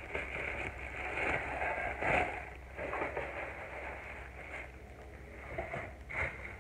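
Clear plastic packaging rustling and crinkling as it is handled, coming and going irregularly, over a steady low hum.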